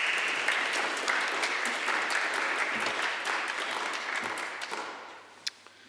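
Audience applause that dies away about five seconds in.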